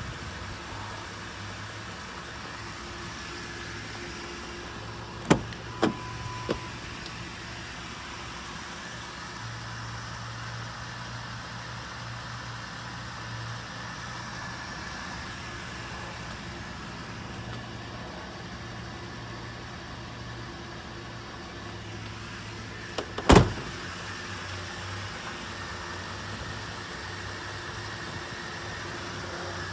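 Pickup truck door being worked: a few latch clicks and clunks about five seconds in with a brief electronic chime, then the door slammed shut about 23 seconds in, the loudest sound. A steady low hum runs underneath.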